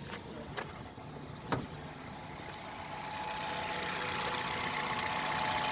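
Hyundai Solaris 1.4 four-cylinder petrol engine idling warm, with three sharp clicks in the first two seconds. The engine sound grows louder from about three seconds in. The owner hears only a slight knock from it, on gear shifts.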